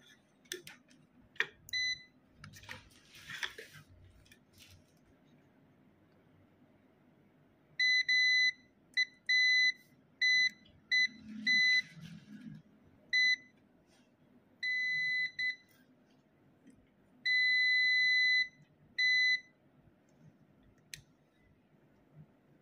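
DM-97 digital multimeter's continuity beeper sounding in an on-off run of about a dozen high beeps, some short and some held for a second or more, as the test probes touch points on an engine control unit's circuit board. A few light clicks of the probes come first. The beeping means continuity, and the short is still there after the component was removed.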